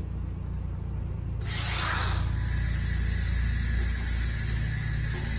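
Compressed air hissing from an air chuck pushed onto a UTV tire's valve stem with the valve core out, blowing air in to seat the tire's bead. The hiss starts suddenly about a second and a half in and then runs steadily with a thin high whistle in it, over a steady low hum.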